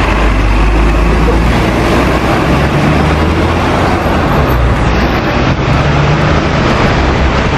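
Steady city traffic noise with buses driving past close by, their engines running with a low rumble under the tyre and road noise.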